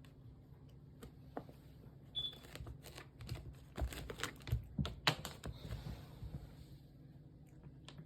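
Kittens gnawing and biting a teether stick: irregular small clicks, crunches and crinkles, busiest in the middle.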